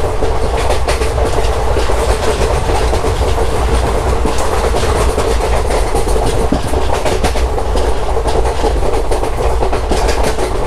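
Passenger express train running on the track, heard as a steady loud rumble with a constant hum. Over it the wheels clatter and click as they cross the rail joints.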